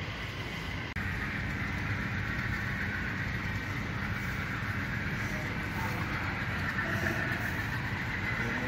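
Steady rumble and hiss of a train running on an HO-scale model railroad layout, starting abruptly about a second in.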